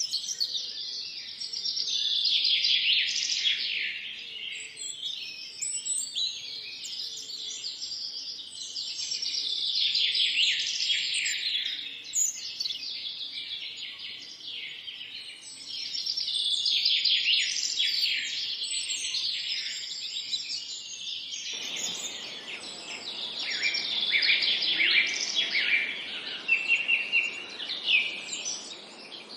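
Many small songbirds singing and chirping together in a forest chorus, rapid overlapping twitters and trills that swell and ease every few seconds. About three-quarters of the way through, a steady hiss of background noise comes in abruptly beneath the birds.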